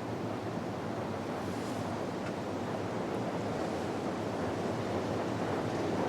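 Strong wind blowing through the forest trees and an open-sided tarp shelter: a steady, ferocious rushing that swells slightly toward the end.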